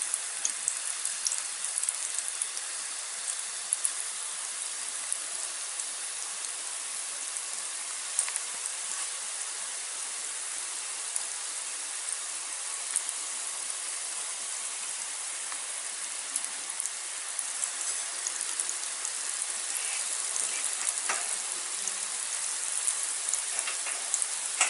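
Masala-coated chickpeas deep-frying in hot oil in a pan: a steady sizzle with scattered sharp crackles and pops.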